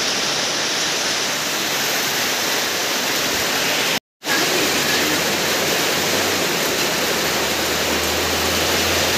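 Heavy rain falling steadily, a dense hiss, cut off briefly about four seconds in. A low steady hum joins it in the second half.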